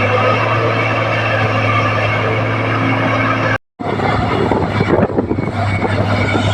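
Komatsu D58P crawler bulldozer's diesel engine running steadily with a low drone. The sound drops out for a split second about halfway through, then the engine resumes with more rattling and clatter over it.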